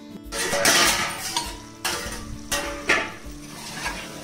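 Flat metal spatula scraping and knocking against the inside of a metal pot, in several irregular strokes, while mutton curry is stirred and fried with onion and masala.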